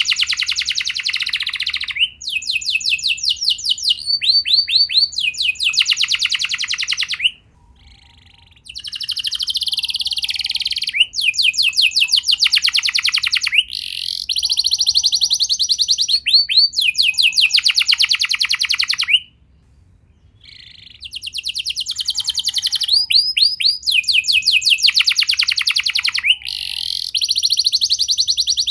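Domestic canary singing a long song of rapid trills. Each phrase is a quick run of repeated, falling high notes, switching to a new trill every second or two, with two short pauses.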